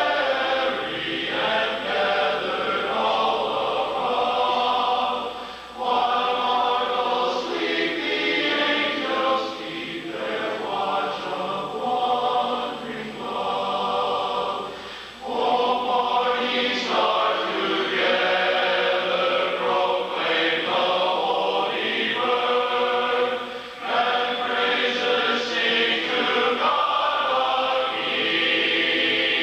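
Large men's barbershop chorus singing a cappella in close four-part harmony: sustained chords sung in phrases a few seconds long, with brief breaks for breath between them.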